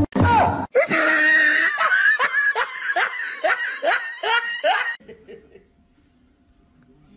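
A person laughing hard in a run of repeated falling 'ha' pulses, about two to three a second, which stop about five seconds in.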